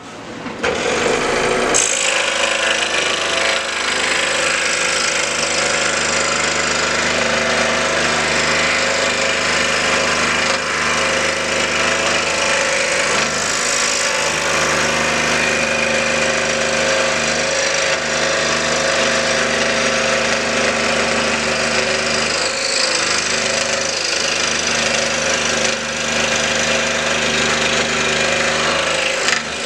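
Scroll saw running steadily, its blade cutting through a small block of elm wood. It comes up to speed about a second in and dips briefly a few times.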